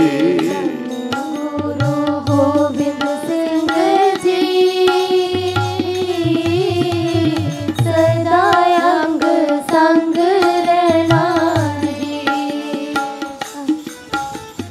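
Sikh devotional kirtan: harmonium and tabla, with a voice singing over them. The tabla's deep drum strokes come in repeated runs.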